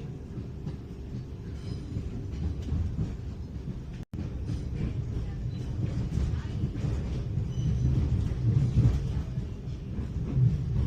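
Electric passenger train running, heard from on board as a steady low rumble that grows louder in the second half. The sound cuts out for an instant about four seconds in.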